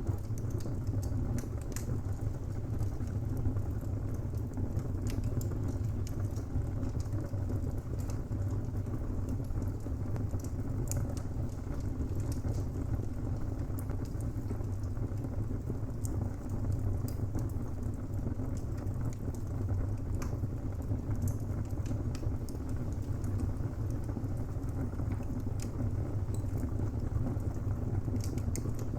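Wood fire burning in a fireplace: a steady low rumble of flames with scattered sharp crackles and pops from the burning timber.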